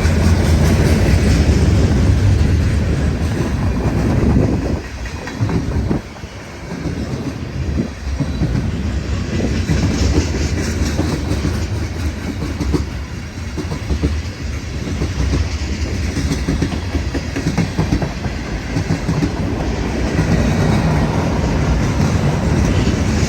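Train cars rolling past at speed, a steady rumble with wheels clacking over the rail joints. The sound drops for a few seconds about five seconds in, then continues.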